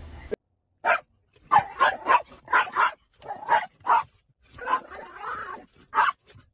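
Small terrier barking and yapping in a rapid, uneven series of about a dozen sharp barks, starting about a second in, at a worker squeegeeing the car window it stands against.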